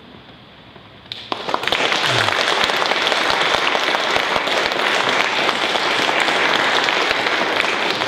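After a moment of quiet, an audience starts applauding about a second in and keeps clapping steadily.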